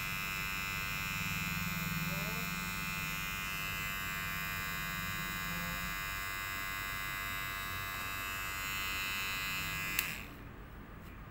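Kemei KM-1986 electric hair clipper running with a steady buzz while a razor blade is worked against its cutting blades to clear out trapped hair. It is switched off with a click about ten seconds in.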